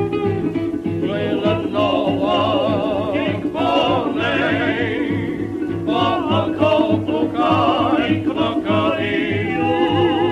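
Music: a singing voice with strong vibrato over a steady, regular bass beat.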